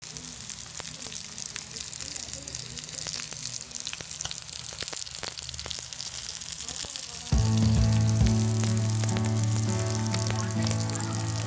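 Fish steak sizzling and crackling in hot oil in a frying pan. About seven seconds in, background music with sustained steady notes comes in, louder than the sizzle.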